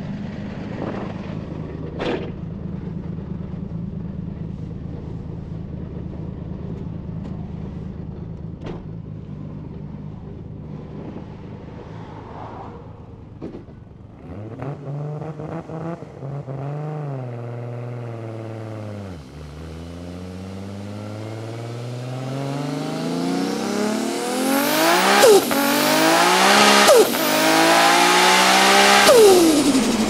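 Nissan Skyline R34's built RB32/26 straight-six, turbocharged by a Garrett G42, idling steadily with a few sharp clicks. About halfway in it pulls away and the revs rise and fall through two quick gear changes. It then builds into a long, loud hard-acceleration pull, with the pitch dropping sharply at upshifts near the end.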